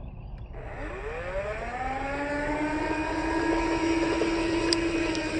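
Radio-controlled toy tractor running: a motor whine that rises in pitch over the first couple of seconds as it gets going, then holds steady, over a low rough rumble.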